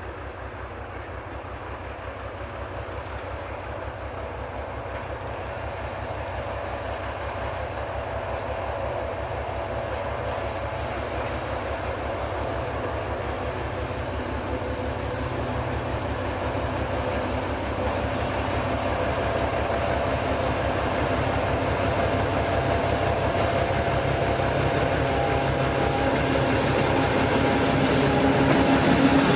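S200-class (ČME3-type) diesel locomotive approaching with a freight train, its engine running with a steady low throb under load and getting steadily louder as it draws near.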